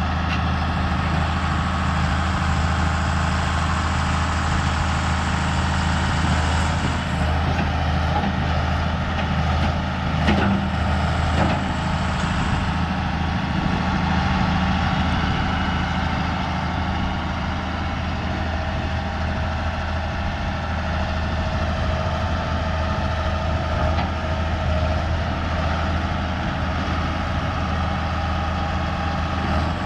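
Heavy farm machinery engine running steadily with a deep, even hum, and a brief knock about ten seconds in.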